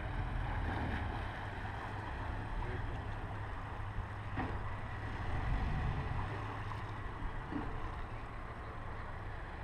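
Twin Suzuki outboard motors running at low speed while the boat is manoeuvred for docking, a steady low rumble with water and wind noise over it, a little louder about five and a half seconds in.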